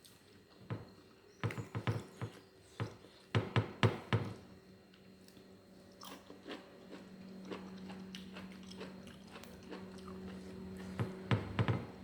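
Close-up sounds of a person biting and chewing food: a run of crisp crunches in the first few seconds, quieter chewing, then more crunches near the end. A low steady hum comes in about four seconds in.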